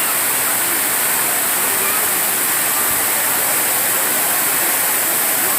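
Courtallam waterfall pouring in heavy flow, a loud, steady rush of falling water.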